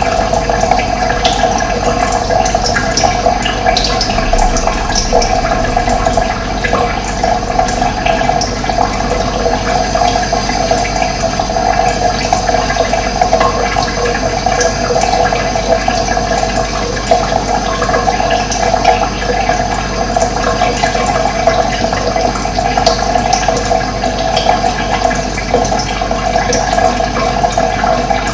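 Running water flowing steadily, an unbroken rushing sound.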